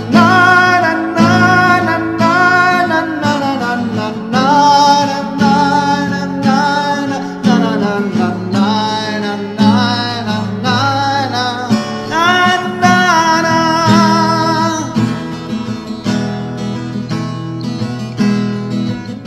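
A man singing over a strummed acoustic guitar; his voice stops about fifteen seconds in and the guitar strums on alone.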